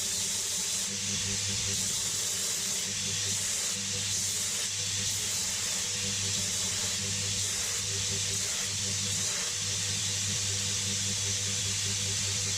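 Power grinder grinding steel, a steady unbroken hiss over a low motor hum, as the face and cheeks of a small forged anvil are dressed.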